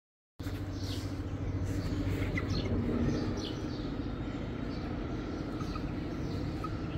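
Birds chirping in short, falling chirps over a steady low hum. The sound cuts in abruptly just under half a second in.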